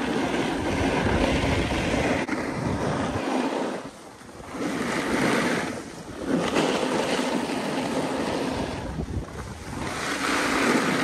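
Skis scraping and hissing over snow on a downhill run, swelling and easing with each turn every two to three seconds, with wind rushing over the microphone.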